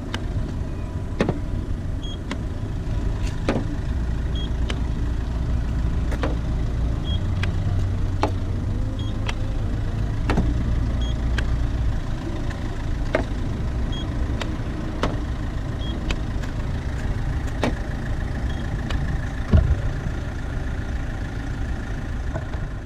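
Paint thickness gauge probe tapping against a car's steel body panels about once a second, each tap a sharp click, with faint short high beeps now and then, over a steady low rumble.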